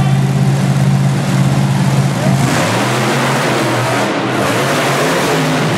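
Two monster truck engines running loud at the start line, a steady drone, then revving hard as the trucks launch and race side by side about two and a half seconds in.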